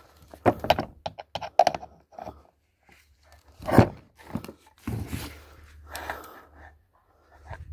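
Pliers and hand tools knocking, clicking and scraping against a vacuum cleaner motor's metal housing on a workbench, a run of short knocks with one louder knock about four seconds in.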